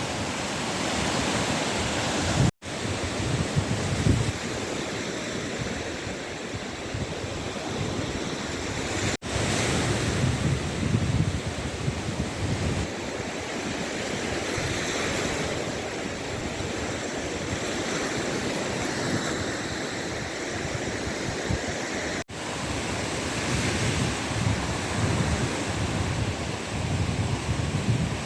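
Waves washing onto the shore, with wind buffeting the microphone in low gusts. The sound cuts out for an instant three times.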